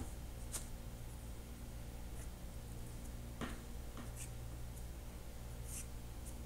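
Faint rustles and a few soft clicks from fingers handling a clump of cut bucktail hair and tying thread, over a low steady hum.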